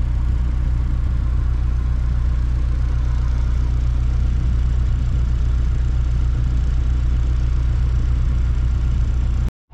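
Tour boat's engine running steadily, a deep, even hum heard from on board; it cuts off abruptly just before the end.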